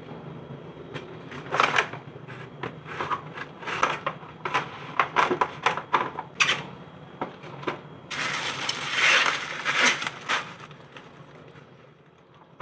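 Kitchen items being handled: a run of sharp clicks and knocks, then about two seconds of noisy rustling near the end.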